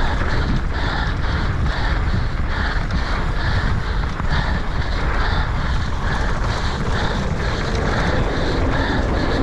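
A mountain biker breathing hard and fast, quick rhythmic breaths a little over two a second, over loud wind rush and rumble on the microphone while riding.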